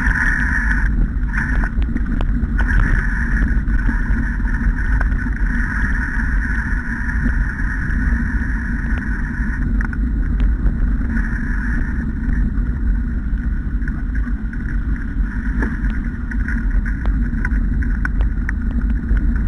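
Wheeled dog-training rig rolling steadily over a wet forest trail behind a team of sled dogs: a continuous rumble and rattle with scattered clicks.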